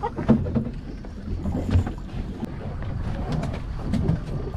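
Steady low rumble and wind on the microphone aboard a small fishing boat at sea, with scattered knocks and clicks of gear being handled on deck; the clearest knocks come just after the start and near two seconds in.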